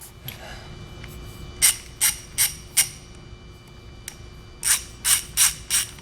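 Capri Tools CP12500C 1/2-inch drive ratchet worked back and forth, its pawl clicking in two runs of four quick strokes. The mechanism still ratchets normally after a load of about 500 foot-pounds.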